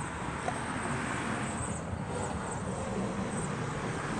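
Steady low background rumble of distant engines, even and unbroken.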